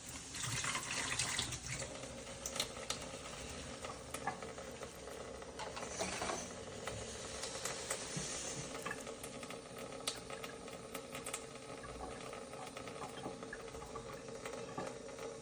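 Water from a tap splashing into a sink in short spurts, the longest in the first two seconds, with scattered clinks and clicks of dishes being handled and a steady hum underneath, as a robot dishwasher washes dishes.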